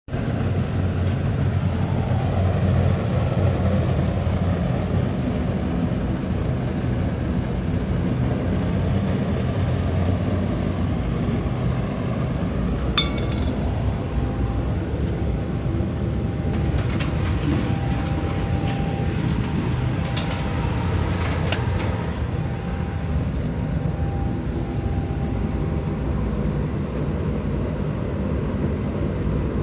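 Wood-pellet burner for a metal-melting furnace running: a steady, loud low rumble of flame and blower, with a single clink about 13 seconds in.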